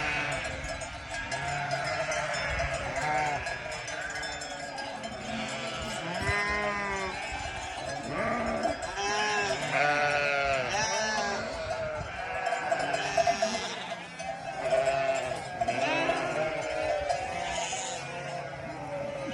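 A flock of sheep bleating, many overlapping bleats one after another.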